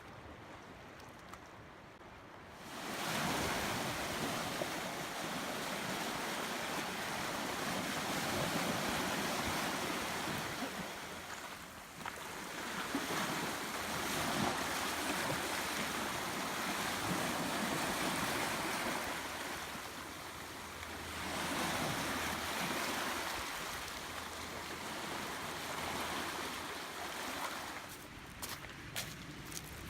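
Surf: waves washing in as a rushing noise that swells and eases in long surges, fading away near the end.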